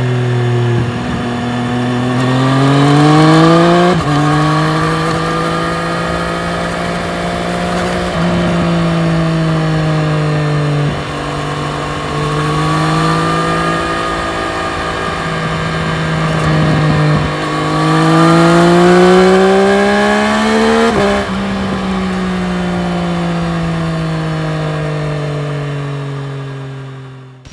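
Triumph Street Triple RS's 765 cc inline-three engine under way, rising in pitch as it accelerates and dropping suddenly at gear changes about four seconds in and again about 21 seconds in. Between these it holds a steady note, and it fades out at the very end.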